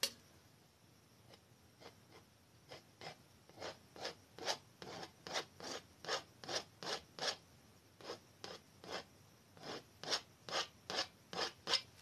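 Small palette knife scraping short strokes of oil paint onto canvas, about three strokes a second, with a short pause partway through.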